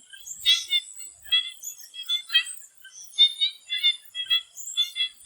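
A chorus of swamp frogs giving short, raspy calls, two or three a second and overlapping, over a thin steady high-pitched tone.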